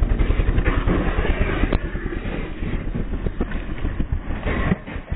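Supermoto looping out of a wheelie and crashing, heard from the rider's helmet camera: a heavy pulsing rumble, a sharp knock a little under two seconds in as rider and bike go down, then rough scraping as both slide along the asphalt. The rear brake had failed, so the wheelie could not be brought back down.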